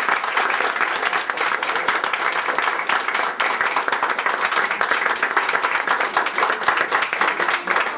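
Applause from a small crowd, many hands clapping together at a steady level.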